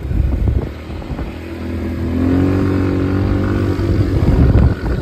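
Italika ATV engine accelerating under throttle, its pitch rising steadily for a couple of seconds, then falling off suddenly near the end as the throttle is let go.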